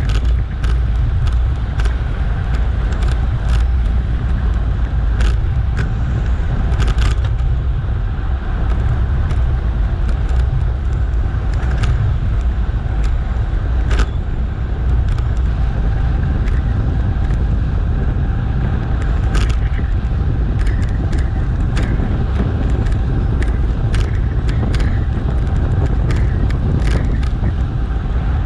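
Wind rumbling on a GoPro action camera's microphone while cycling at speed, with scattered clicks and rattles from the ride.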